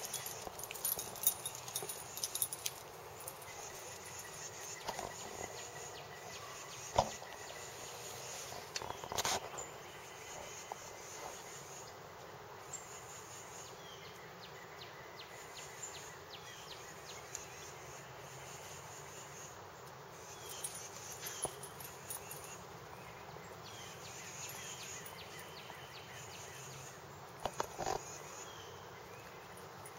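Outdoor yard ambience: a steady faint hum of insects, broken by scattered short clicks and knocks, the sharpest about seven seconds in.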